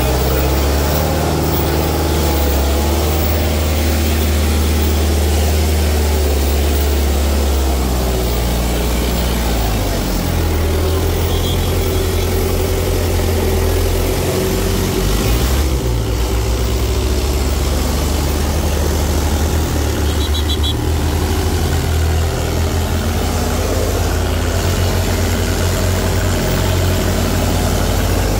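Diesel tractor engines running steadily, a deep low drone with a brief change in pitch and level about ten seconds in.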